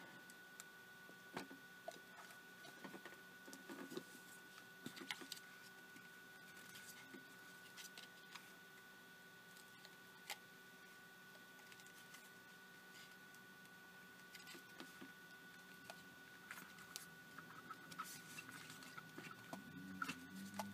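Near silence with scattered faint clicks, taps and scraping of plastic housing parts being handled and fitted together, over a faint steady hum.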